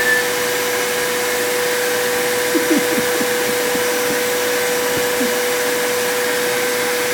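Vacuum cleaner running steadily, with a constant motor whine.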